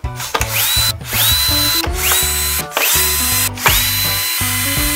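Cordless drill-driver backing out casing screws, its motor whining up in pitch and then holding, in about five short runs. Background music plays underneath.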